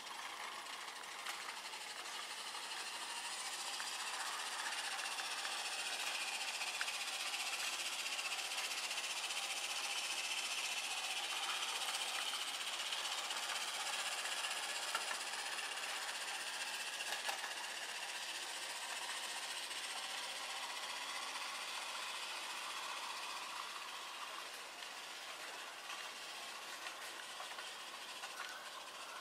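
1:24 scale model electric tram running along its garden track, giving a steady high whirring hiss from its wheels and drive with a few faint clicks. It grows louder as the tram passes close, then fades near the end.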